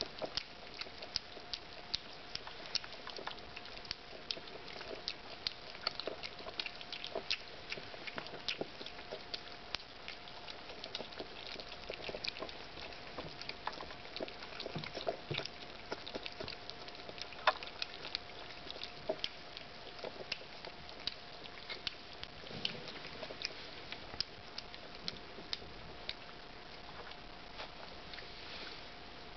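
Cesky terrier puppies lapping milk from a shallow metal bowl at their first supplementary feeding: quick, irregular wet tongue clicks and slurps, several a second, with a faint steady hum underneath.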